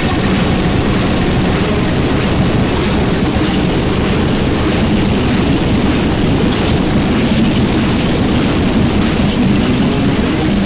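Harsh noise music: a loud, unbroken wall of distorted noise, densest in the low rumble, with hiss reaching up into the highs.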